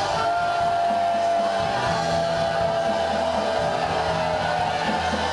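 Slow worship music with held keyboard-style notes and a low bass that changes about two seconds in, under the indistinct voices of a congregation praying aloud together.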